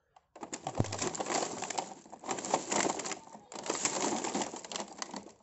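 Plastic blister packaging of a carded toy-truck set crackling and rustling as it is picked up and handled, in two long stretches of dense crackle with a short break between them.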